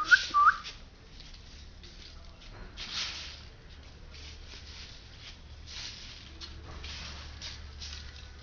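A puppy gives four quick, high, rising squeaks at the start, then soft scuffling and rustling as it moves about.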